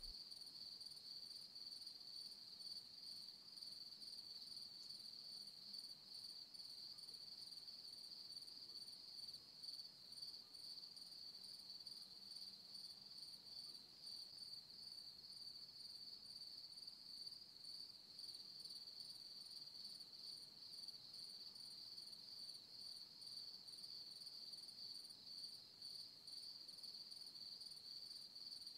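Crickets trilling faintly and steadily at one high pitch.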